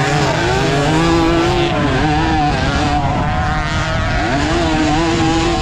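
Suzuki AX115 motorcycle engine at race throttle on a motocross track, revs rising and falling with a dip and climb about four seconds in, over rushing wind and tyre noise.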